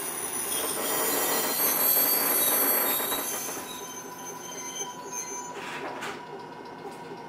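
Onboard running sound of an Eizan Electric Railway Deo 700 series car: the steel wheels squeal on the rails with several high-pitched tones at once. About halfway through the squeal dies away, leaving a quieter rumble with one faint steady tone.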